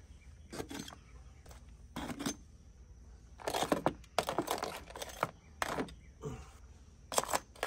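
Steamed blue crabs set one by one into a wooden bushel basket with metal tongs: an irregular series of knocks and clatters of hard shell on wood, with the tongs clicking.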